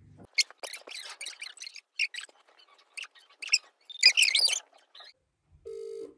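Hushed, hissy whispers and squeaks close to the microphone. Then, about five and a half seconds in, a phone's ringback tone sounds twice in a quick double ring as an outgoing call rings through the speaker.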